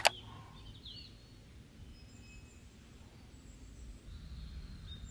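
A sharp double click at the very start, then faint birds chirping and whistling outside over a low steady rumble.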